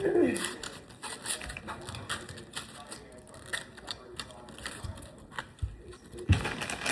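Diecast car packaging being opened and handled: irregular clicks and crackles of plastic and cardboard, with a sharper knock near the end.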